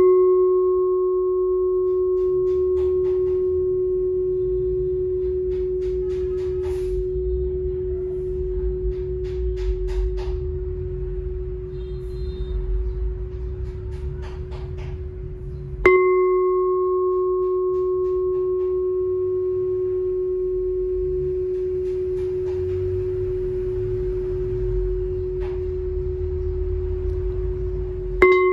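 23 cm Vietnamese chanting bowl bell (chuông tụng kinh) test-struck with a padded striker to check its tone. It rings with one steady low tone over fainter higher overtones and fades slowly over many seconds. It is struck again about sixteen seconds in and once more near the end.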